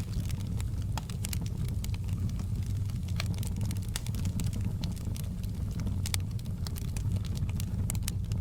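Wood fire burning: a steady low rumble of the flames with irregular sharp crackles and pops from the logs.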